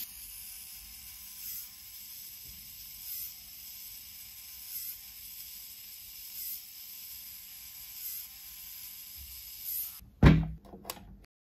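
Faint whir of the robotic crab claw's small electric motor, swelling and fading about every second and a half, then a loud thump about ten seconds in.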